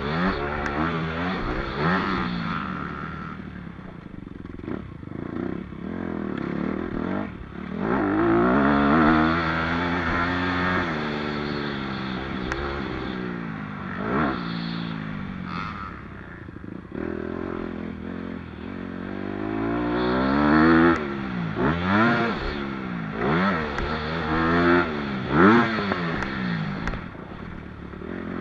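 Motocross bike engine revving hard and dropping off over and over as the rider opens and closes the throttle through the gears around the track, with a run of quick rev rises and drops in the second half.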